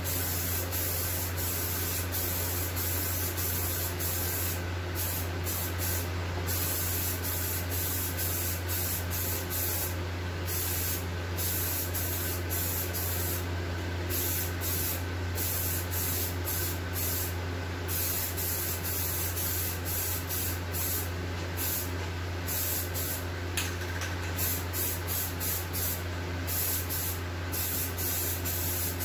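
Aerosol can of Rust-Oleum Peel Coat hissing as it sprays a medium-wet coat, in passes broken by brief pauses, over the steady hum of a ventilation fan.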